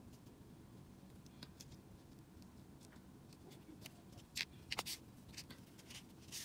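Scissors snipping crochet yarn: a few sharp clicks about four and a half seconds in and again near the end, over faint handling sounds.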